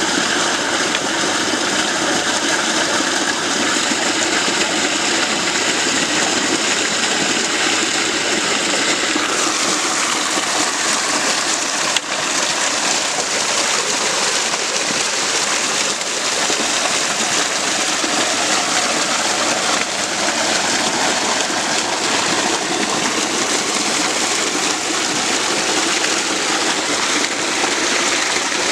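Water gushing steadily from a paddy-field irrigation pump's outlet, a continuous rushing flow. There is a brief click about twelve seconds in.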